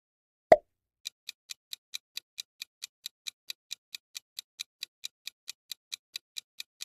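A countdown-timer ticking sound effect: even, sharp ticks, about four to five a second, after one short, louder hit about half a second in as the next question comes up.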